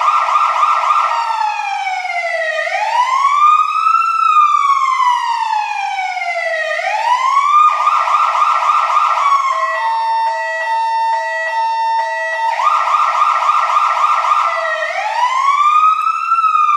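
Fire truck siren cycling through its tones. It begins with a fast yelp, moves into slow rising and falling wails, then a short yelp, then about three seconds of choppy alternating steady tones about ten seconds in, and finally a yelp and a wail again.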